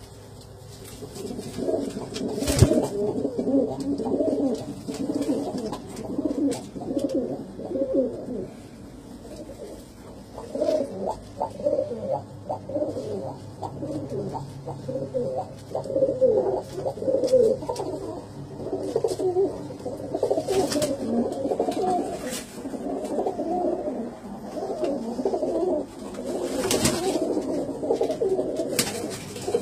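Iraqi hybrid tippler pigeons cooing continuously, several calls overlapping. A few sharp clicks cut across the cooing, the loudest about two and a half seconds in.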